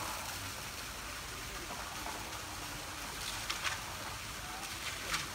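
Steady rush of shallow water running in a concrete elephant bathing pool, with a few short splashes about three and a half seconds and five seconds in.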